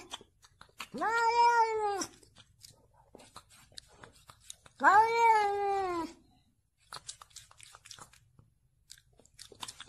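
A cat meowing twice, two drawn-out meows of about a second each, a few seconds apart, each rising then falling in pitch. Faint clicks come in the pauses.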